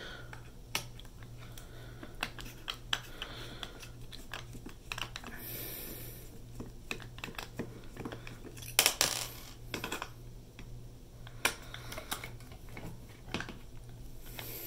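Small metal clicks and taps of a screwdriver working the tiny screws out of a PS4 Slim hard drive's mounting caddy, with a steady low hum underneath.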